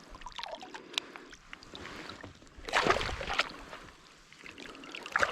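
Splashing and sloshing in shallow water, with a louder burst of splashing about three seconds in and another near the end.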